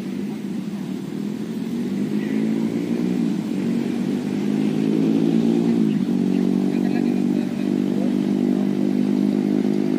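A small engine running steadily, growing louder over the first few seconds, its pitch rising slightly and then dropping about six seconds in.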